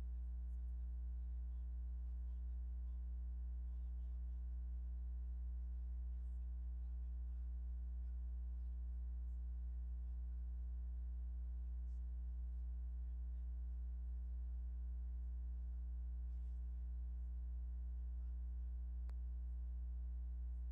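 Steady electrical mains hum: a constant low hum with a ladder of fainter buzzing overtones above it, unchanging throughout.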